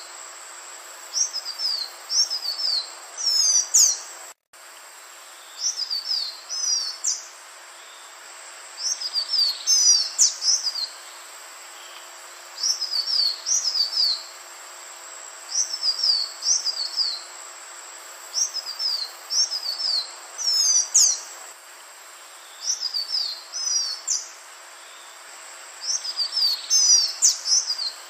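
Male green iora singing: short phrases of quick, high, downward-slurred whistled notes, repeated every two to three seconds over a steady background hiss. The sound drops out for a split second about four seconds in.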